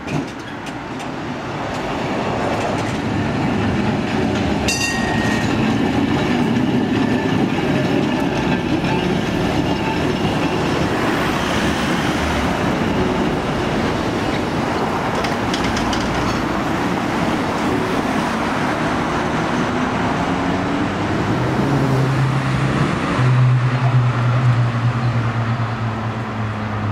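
Heritage tram running along street track, its wheels rumbling on the rails, with a brief high-pitched tone about five seconds in. Near the end a steady low hum comes in.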